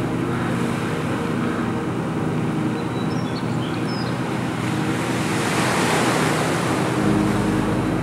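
Steady low drone of the moored tour boat's engine idling, under waves washing onto a pebble beach. One wash swells up loudest about five to six seconds in. A few short, high bird chirps come in between.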